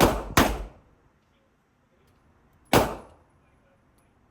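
Three revolver shots of .38 Special rounds at an indoor range: two in quick succession, then a third a little over two seconds later, each echoing briefly off the range walls.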